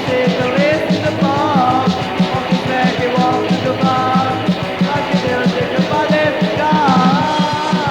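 Hardcore punk song with a fast, steady drumbeat under band instruments and a wavering melodic line that bends up and down.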